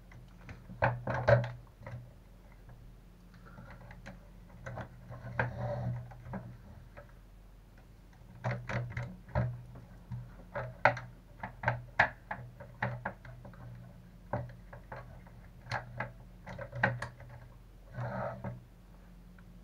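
Irregular clicks and knocks of small plastic and metal RC truck parts and a hand tool being handled and fitted together on a workbench, some in quick clusters, over a steady low hum.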